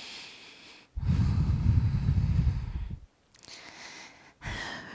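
A woman breathing audibly while holding a yoga plank: a soft breath in, then a long, low exhale of about two seconds, and quieter breaths near the end.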